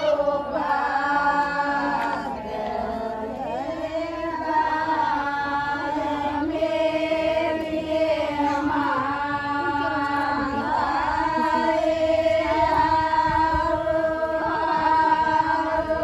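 Devotional songs to the goddess Devi being chanted, in long held notes that waver and glide between phrases.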